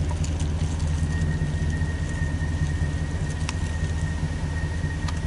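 An engine idling with a steady low hum. A faint high whine comes in about a second in, with a few light clicks.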